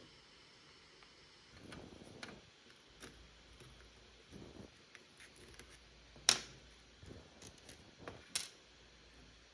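Small handling noises of tools and parts: scattered light clicks and brief rustles, with one sharp click about six seconds in and another near the end.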